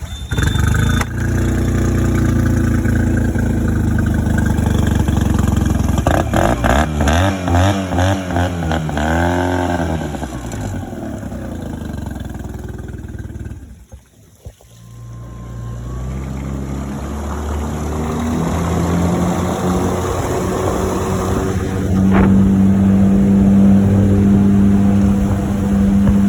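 2020 Mercury 15 hp four-stroke outboard on a small jon boat running under way. Its pitch wavers for a few seconds, the sound drops out briefly about halfway, then the engine speeds up, rising in pitch and holding steady and loud near the end.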